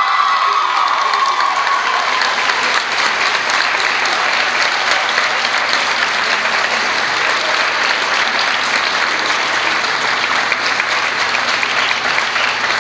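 Audience and contestants applauding steadily. A shrill held cheer fades out in the first second or so.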